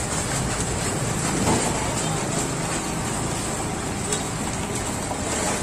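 Electric sugarcane press running, crushing stalks of sugarcane fed through its rollers: a steady mechanical grinding with a few sharp cracks, one about a second and a half in and another near the end.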